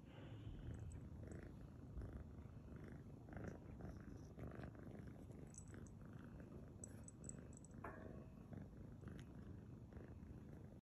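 Tabby kitten purring faintly and steadily, with a few brief high tinkles from the small bell on its harness.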